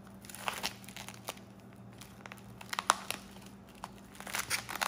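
Plastic wrap being peeled off a plastic food tray, crinkling in scattered short crackles that come thickest near the end.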